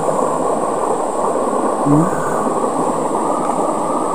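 Steady rush of shallow stream water flowing over rocks, with a hand stirring the water, close to the microphone.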